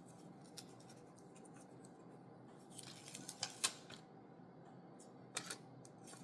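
Faint crinkling and small clicks of a thin adhesive foil pod lid being taken out and handled, with the loudest rustles about three and a half seconds in and again near five and a half seconds.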